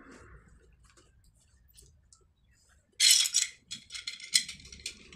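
Pliers gripping and turning the nut on a bolt through a ceramic toilet cistern: a few faint clicks, then, about three seconds in, a sudden loud run of rasping metal scrapes and clicks.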